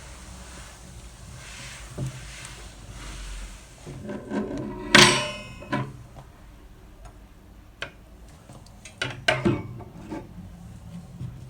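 Knocks and clatter of household items being handled, with one sharp knock about five seconds in and several more near the end.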